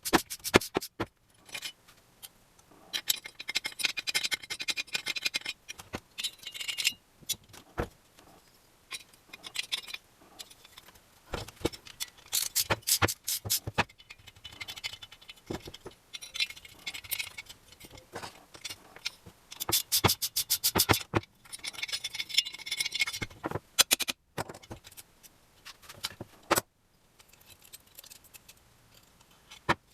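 Small metal parts and hand tools clinking and knocking, with several stretches of scraping or brushing on metal, typical of hands-on moped repair work.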